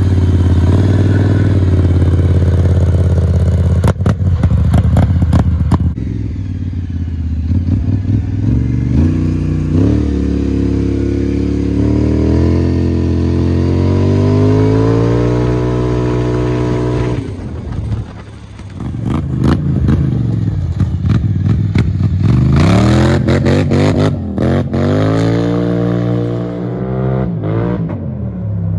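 2023 Polaris Scrambler XP 1000 S ATV's parallel-twin engine, loud through an HMF aftermarket dual exhaust, accelerating hard: its pitch climbs through each gear and drops back at the shifts, several times over.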